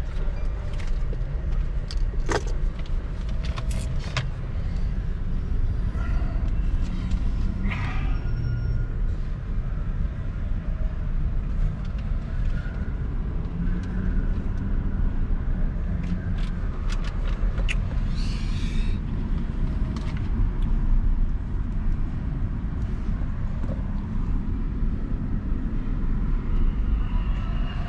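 Steady low engine and road rumble of a Mercedes-Benz S550 heard from inside the cabin in city traffic, with a few sharp clicks and knocks.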